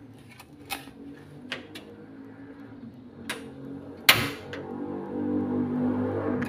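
A few light clinks as a glass lid is set on a pot, then a Rinnai gas stove's burner is lit with one sharp ignition click about four seconds in, followed by a steady low hum.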